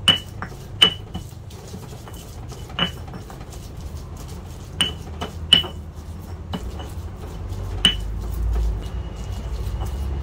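Stone pestle grinding soft fried chilies in a stone mortar (Indonesian ulekan and cobek) to make sambal: a wet crushing and scraping, broken by six sharp knocks of stone on stone, irregularly spaced. A low rumble builds near the end.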